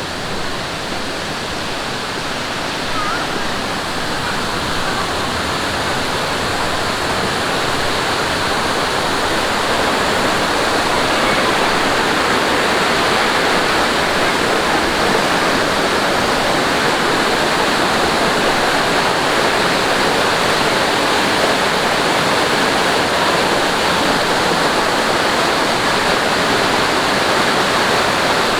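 Mountain valley stream rushing over rocks, a steady full hiss of water that grows louder over the first several seconds and then holds steady.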